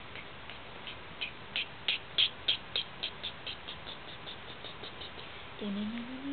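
A rapid run of light, high clicks, about four a second, growing louder and then fading away over about five seconds. Near the end a voice begins a rising sound.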